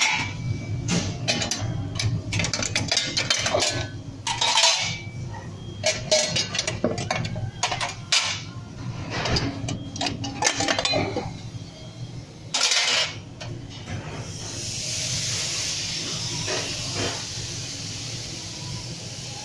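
Scraping and clattering on a commercial stainless-steel grill for about the first 14 seconds. Then a steady hissing sizzle as cleaning liquid is poured onto the hot grill plate and turns to steam.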